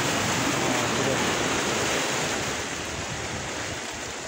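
Sea waves breaking and washing over the rocks of a rocky shoreline, a steady hiss of surf that is loudest in the first couple of seconds and then eases off.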